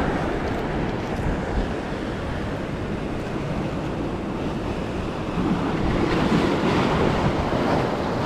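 Ocean surf washing and breaking against shoreline rocks, a steady rush with wind buffeting the microphone; the surf swells louder about five and a half seconds in.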